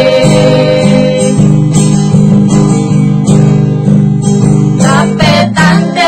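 Acoustic guitar strummed in a steady rhythm, with women's voices singing briefly at the start and coming back in near the end.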